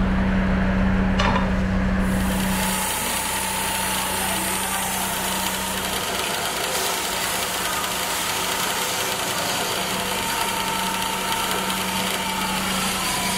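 Lathe motor running with a steady hum while rags are pressed against a spinning metal plate to polish it. A continuous rubbing hiss sets in about two seconds in, with a thin steady whine above it.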